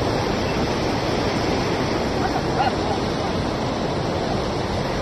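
Steady rushing of a fast, swollen, muddy river in flood, an even unbroken roar of water. A few brief faint high cries come through a little past two seconds in.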